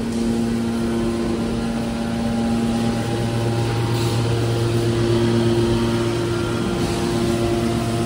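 Hydraulic scrap metal baler's power unit running: electric motor and hydraulic pump giving a steady hum of several level tones, its low note growing stronger about three seconds in.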